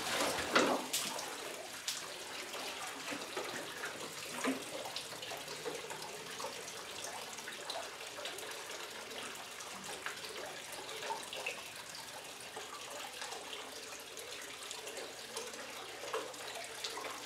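Tap water running steadily into a metal bucket in a concrete wash trough, with occasional short splashes from a dog sitting in the water. The loudest splash comes about half a second in.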